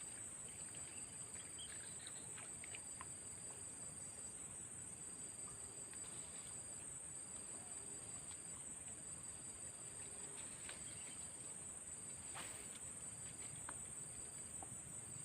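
Insects calling in a steady high-pitched drone, with a second, lower insect call coming and going in on-off stretches about a second long.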